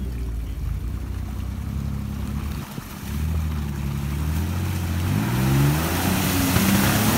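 Lifted compact pickup's engine running under load as it churns through a mud pit on big lugged mud tires. The engine note dips briefly about two and a half seconds in, then climbs in pitch from about five seconds on as the spinning tires sling mud and water.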